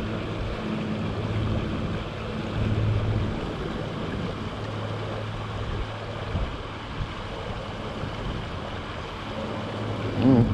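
Shallow river riffle rushing steadily over a stony bed, with wind rumbling on the microphone.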